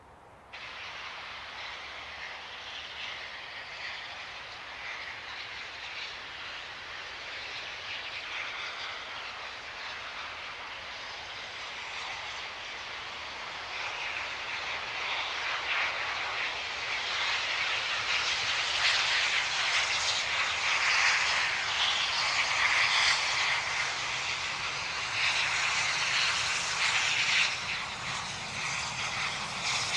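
NSWGR 36 class 4-6-0 steam locomotive working under steam with a passenger train, a dense rushing exhaust with faint repeated beats. It grows louder through the second half as the engine draws nearer.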